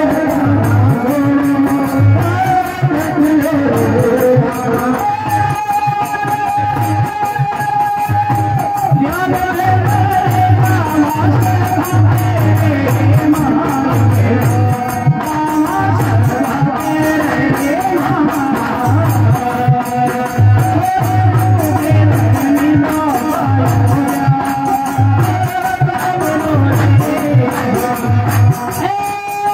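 Indian devotional folk music: a low drum beating a steady repeating rhythm under a held melody line.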